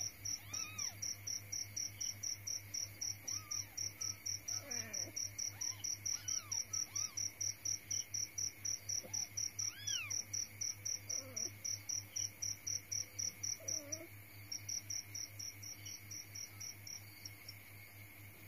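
A cricket chirping steadily in a fast, even rhythm of about four chirps a second, faltering and growing quieter near the end. Now and then a newborn kitten gives short, thin mews, under a low steady hum.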